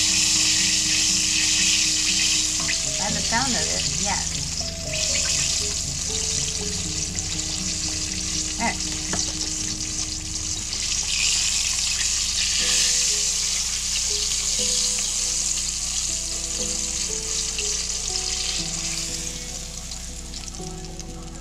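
Breaded walleye fillets deep-frying in hot oil in a cast iron skillet: a steady sizzle that grows quieter near the end as pieces are lifted out.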